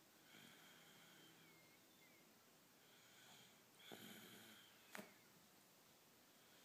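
Faint snoring breaths, each carrying a little high nose whistle, three in all, the loudest about four seconds in. A sharp click comes about a second after it.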